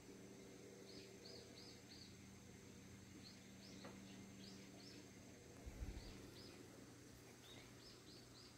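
Quiet ambience with small birds chirping faintly in short runs of three or four quick notes, and a brief low thump about six seconds in.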